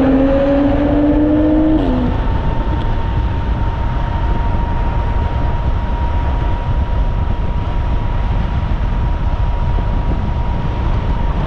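Steady rush of wind and road noise from riding at speed, with a faint steady whine. In the first two seconds a car engine accelerates, its pitch rising, then cuts off.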